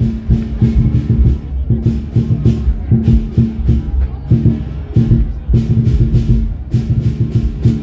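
Music with a steady percussive beat over a rhythmic bass line.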